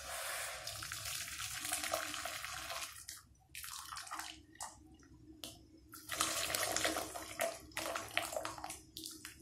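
Hot jaggery syrup poured from a pan through a steel mesh strainer into a metal wok, splashing steadily. After about three seconds the stream breaks into short spurts and dribbles with pauses between them.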